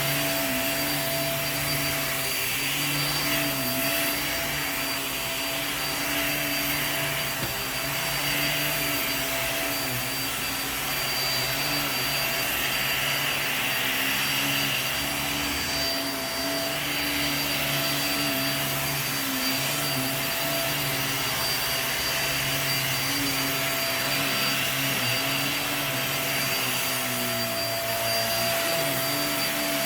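Upright vacuum cleaner running steadily on carpet, its motor hum wavering slightly in pitch every few seconds as it is worked back and forth.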